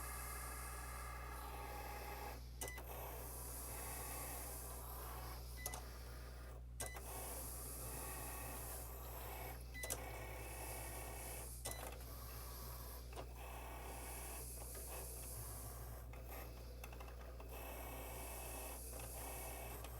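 Cricut cutting machine at work cutting paper: its small motors whir in stretches as the carriage and mat shuttle back and forth, with scattered short clicks over a steady low hum.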